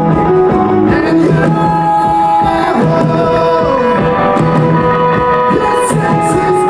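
Background music with a sung melody over a steady beat.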